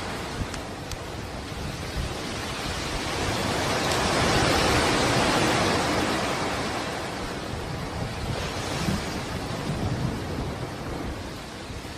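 Flowing lava giving a steady rushing hiss that swells louder around the middle and then eases, with a couple of faint crackles near the start.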